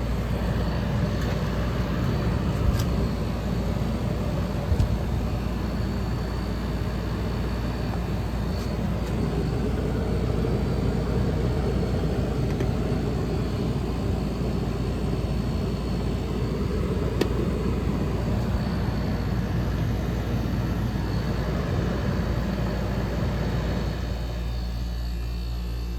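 1977 General Electric Superthrust 10,500 BTU window air conditioner running: a steady rush of fan air over a low hum. About 24 seconds in the air noise drops away and a steadier humming tone is left.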